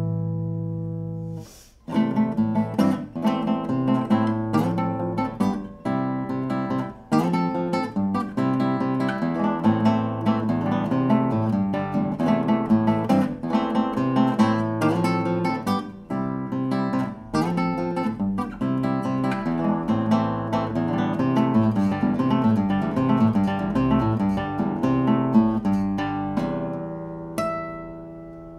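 Solo classical nylon-string guitar played fingerstyle. At the start a chord rings out and dies. Then comes a lively passage of plucked notes and struck chords, and near the end a chord is left to ring and fade.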